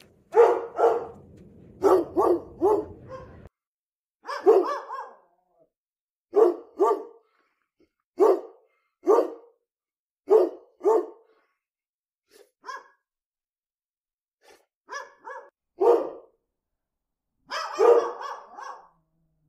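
A dog barking again and again: short single barks and quick pairs or triplets, with pauses of a second or more between them.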